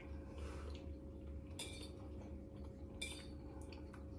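Metal fork clinking and scraping against a plate while scooping up mac and cheese: faint, scattered clinks, the clearest two about a second and a half apart.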